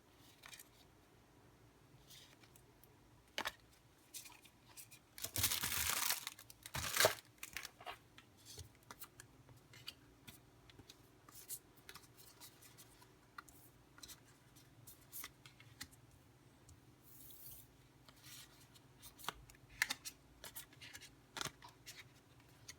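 Packaging being torn open by hand: a loud ripping tear about five seconds in and a shorter one about a second later, followed by scattered light rustling, crinkling and small clicks as the wrapping and items are handled.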